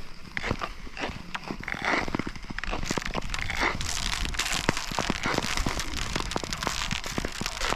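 Nordic touring skate blades scraping and gliding over thin new lake ice, about 45 mm thick, with many sharp clicks and cracks from the ice and short hissing scrapes as strides push off.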